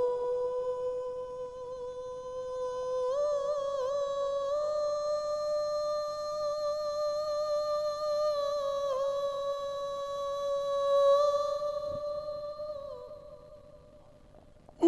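A male naat reciter holding one long sung note without accompaniment, drawn out of the word 'noor', wavering slightly; it steps up in pitch about three seconds in and slides down before fading out near the end.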